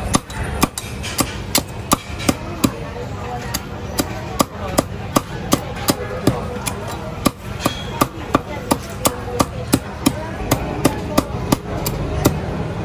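Cleaver chopping crispy fried pork on a thick round wooden chopping block: a quick, steady run of sharp chops, about two to three a second, over steady background noise.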